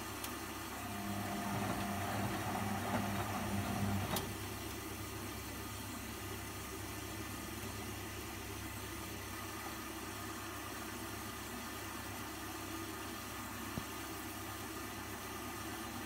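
1990s Husqvarna front-loading washing machine running mid-wash. A louder motor hum rises for a few seconds, then stops with a click about four seconds in, leaving a steady low hum.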